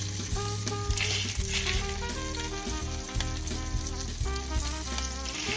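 Breaded chicken breasts sizzling as they sear in hot olive oil in a saucepan, under background music with a steady bass line.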